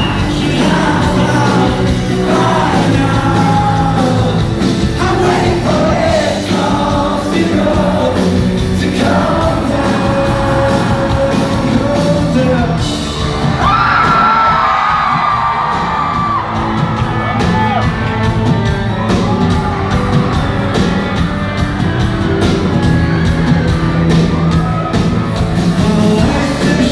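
Live band performance, with a male singer over the band and the audience yelling and whooping.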